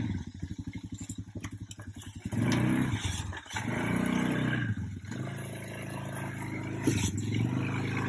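ATV engine running at low revs as the four-wheeler crawls slowly across a wooden plank bridge, its throttle opening up briefly about two and a half and four seconds in. There are a few sharp clicks near the end.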